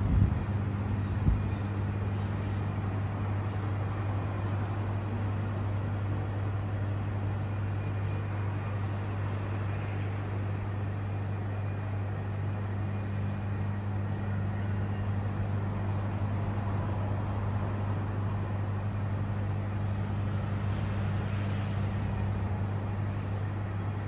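Upright glass-door display freezers running: a steady low hum over an even fan hiss. Two light knocks come in the first second and a half.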